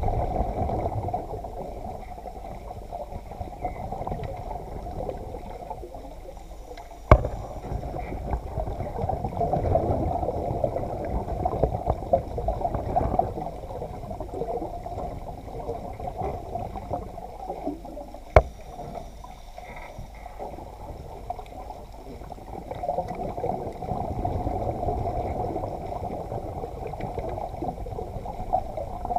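Muffled underwater water noise heard through a camera housing in a submerged cage: a steady, fluctuating wash of moving water and gurgling. Two sharp knocks stand out, one about a quarter of the way in and another a little past halfway.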